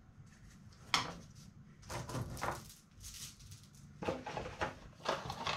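Loose chainsaw chain clinking and rattling as it is handled and measured on a workbench, in short bursts: a sharp click about a second in, a rattle around two seconds, and steadier clatter from about four seconds on.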